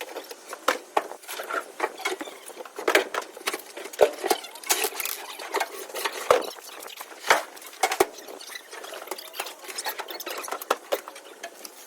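Objects being rummaged through and moved around: an irregular run of clicks, knocks and scraping, with a few sharper knocks about four, six, seven and eight seconds in.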